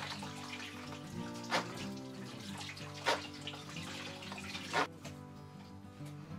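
A coarse-toothed hand bone saw rasps through wild boar ribs, with three sharp clicks about a second and a half apart, and the sawing stops about five seconds in. Steady background music plays under it.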